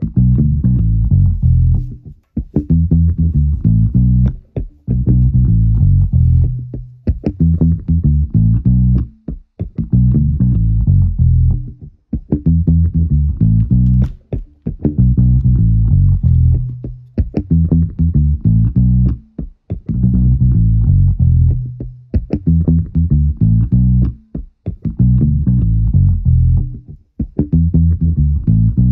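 Background music: a bass-guitar-led instrumental with plucked guitar, in repeating phrases of about two seconds with short breaks between them.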